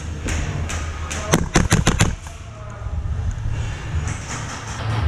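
Airsoft gun firing a rapid string of about six shots in under a second, a little over a second in.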